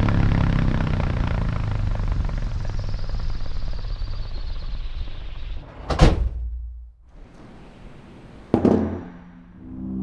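Blimp's propeller engines droning and fading away, then two loud thumps about two and a half seconds apart.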